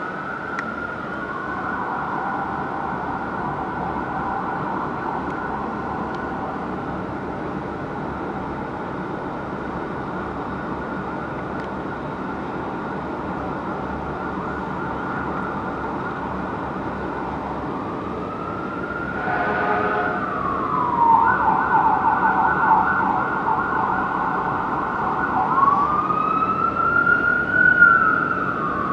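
Fire engine's siren, slowly rising and falling in a wail, changing to a rapid yelp for a few seconds about two-thirds of the way through, then back to the wail as it grows louder. A short horn blast sounds just before the yelp.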